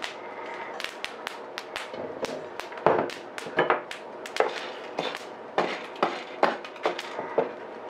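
Freshly roasted coffee beans being stirred with a wooden spatula in a metal pan to cool: a run of sharp clicks and rattles of beans against the metal. From about three seconds in come louder knocks with a short ring, roughly every half second, as the spatula strikes the pan.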